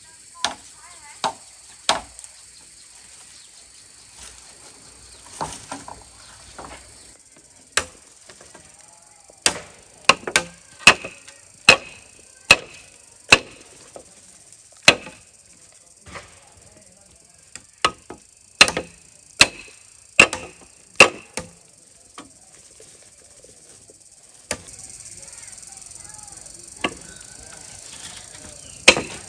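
Sharp chopping strikes on wood or bamboo, about one a second in uneven runs with pauses, over a steady high hum of insects.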